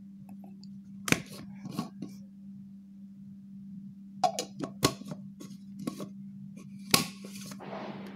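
Empty clear plastic cosmetic jar and its white screw-on lid being handled: sharp plastic clicks and knocks as the lid is twisted off and put back on, loudest about seven seconds in, followed by a short rustling scrape.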